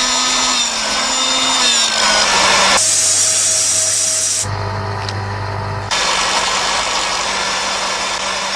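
Small petrol engines of backpack mist-blower sprayers running steadily with the rush of the air blast. The sound changes abruptly three times as different sprayers cut in.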